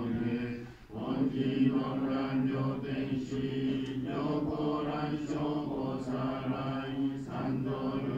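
Japanese Buddhist sutra chanting: voices reciting in a steady, even chant, with a brief pause for breath about a second in.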